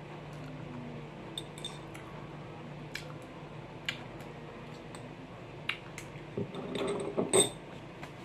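A spoon clicking against a small ceramic bowl while eating, with light ticks scattered every second or so. Near the end comes a busier cluster of knocks and rustling as the bowl is set down and a tissue is handled.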